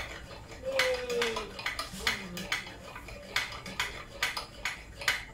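Hand pump of a Soviet army petrol camping stove being worked, with sharp metallic clicks and clinks about twice a second and a brief falling squeak about a second in. The stove's fuel tank is being pressurised before lighting.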